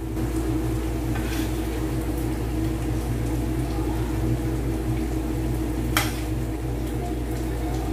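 Adobo being ladled onto a ceramic plate: a steady hiss and low hum, with one sharp clink of the ladle against the plate about six seconds in.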